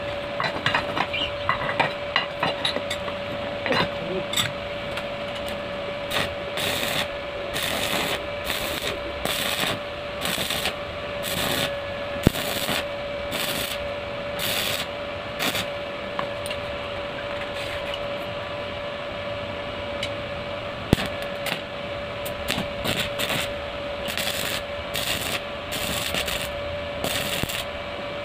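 Stick (arc) welding on steel: the electrode's arc crackles and sizzles in repeated short bursts from about six seconds in, over a steady hum.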